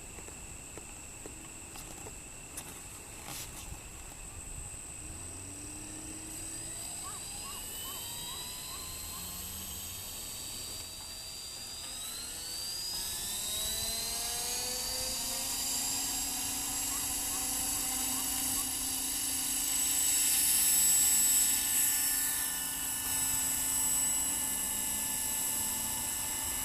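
Trim Corporation Accurate 550 radio-controlled helicopter spooling up: the whine of its motor and rotor rises steadily in pitch from about five seconds in, growing louder, and settles into a steady high whine over the last several seconds.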